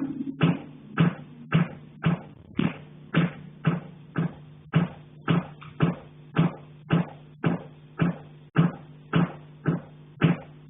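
Metal heating pipe being struck in a steady, even rhythm, just under two knocks a second, each knock ringing briefly along the pipe. The uploader takes it for someone knocking on the pipe from the attic.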